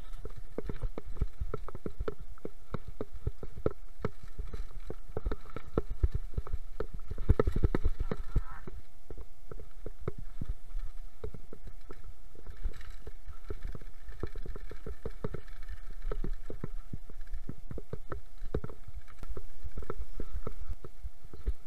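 Mountain bike clattering over a rough trail on a fast descent: a dense, irregular run of knocks and rattles as it bounces over stones and ruts, over a steady low rumble.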